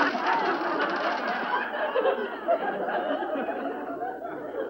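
Studio audience laughing, the laughter dying down near the end.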